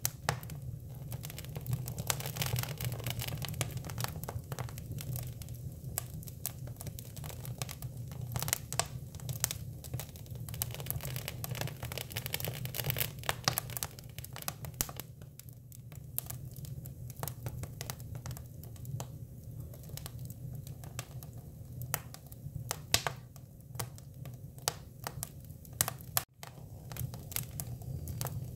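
Hinoki cypress wood burning, crackling with frequent sharp pops over a low steady hum. The sound cuts out for an instant near the end.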